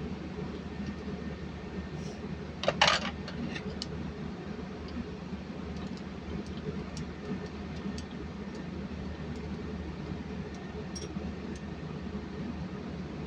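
Metal tools and engine parts clinking, with one louder metallic clatter about three seconds in and scattered light ticks after it, over a steady low machinery hum.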